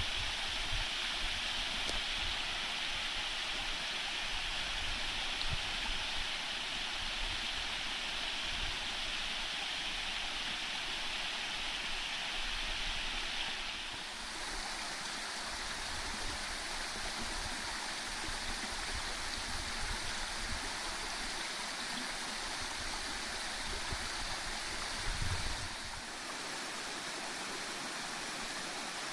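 Small waterfall: a steady rush of falling, splashing water. The tone changes abruptly twice, once about halfway through and again near the end.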